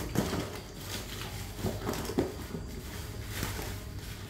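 A small cardboard box being opened by hand: flaps pushed back and white packing wrap rustled and pulled out, with a few light knocks of cardboard.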